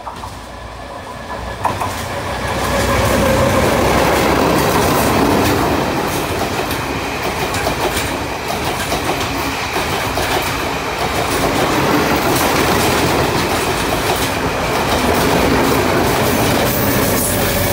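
Passenger train passing close by. The rumble builds over the first three seconds as it draws near, then holds loud and steady as the carriages go past, with the wheels clicking again and again over the rail joints.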